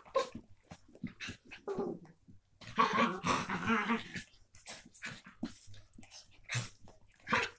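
Miniature pinschers play-fighting: a drawn-out play growl lasting over a second, about three seconds in, amid short scuffling noises.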